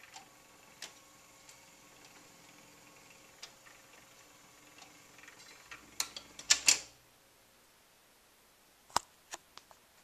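Faint, scattered mechanical clicks and ticks from the record changer of a 1959 Magnavox Imperial console stereo, a record still turning under the tone arm. A short run of louder clicks with a low rumble comes about six seconds in, and a few sharp clicks near the end.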